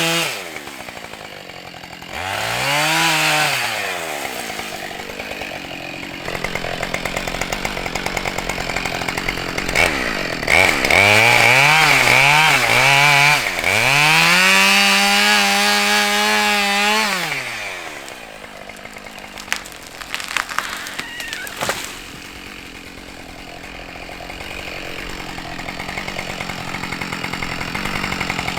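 Two-stroke Husqvarna 572XP chainsaw revving in bursts and cutting into a birch trunk, its pitch sagging under load in the middle, then dropping back to idle. A few sharp cracks follow while the saw idles.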